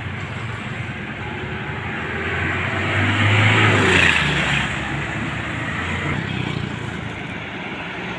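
Street traffic noise with a motor vehicle passing close, its engine and tyres growing louder to a peak about three to four seconds in and then fading.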